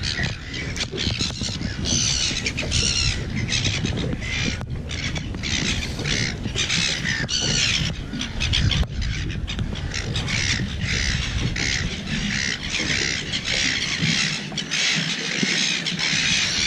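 Birds squawking over and over, several short calls a second, over a steady low rumble of wind and water.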